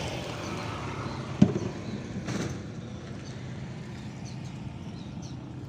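Small motorcycle engine running steadily while riding, with road noise. A sharp knock about a second and a half in, and a softer one about a second later.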